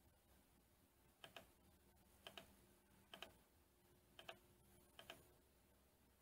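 Computer mouse clicking five times, about once a second, each click a quick double tick of press and release, faint. These are clicks on the keys of an on-screen calculator.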